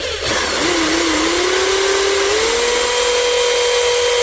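Power drill running under load as it bores a hole through a plastic car bumper fascia: a steady motor whine that rises a step in pitch about two seconds in.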